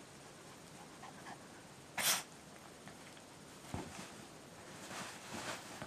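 A poodle sneezes once, sharply, about two seconds in. Then comes a soft thump, and a few short puffs of breath as the dog gets up and moves.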